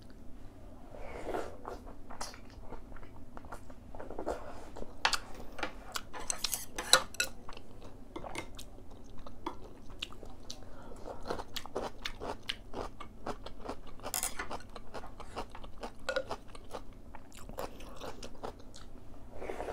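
Close-up chewing and biting of someone eating ox-bone soup with beef and noodles, with irregular wet mouth clicks and crunches of cubed radish kimchi (kkakdugi).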